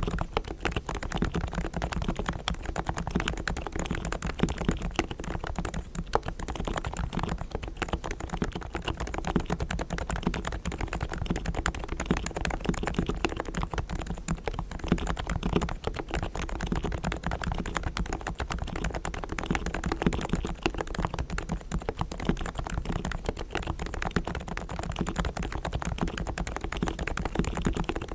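Continuous rapid typing on a Realforce R3 tenkeyless keyboard's Topre 45 g silent, equal-weighted electrostatic capacitive switches: a dense, even stream of keystrokes. The keyboard is fully lubed on springs and sliders, has tuned stabilizers, and has foam dampening added.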